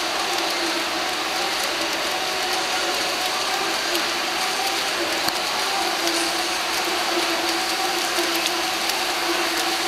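Steady crowd din of spectators cheering in an indoor pool hall during a swimming race, with scattered sharp clicks of clapping or noisemakers.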